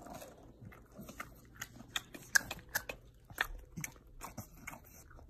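A bulldog chewing and crunching dry cereal, a quick irregular run of crisp crunches, a few each second.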